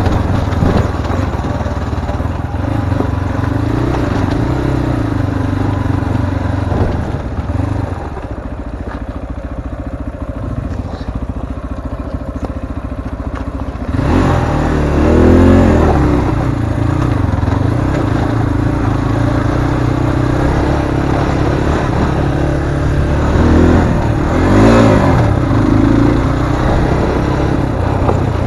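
Zongshen RX3 Cyclone motorcycle's 250cc single-cylinder engine running under way on rough ground, its pitch rising and falling with the throttle. It gets louder about halfway through and revs up sharply twice.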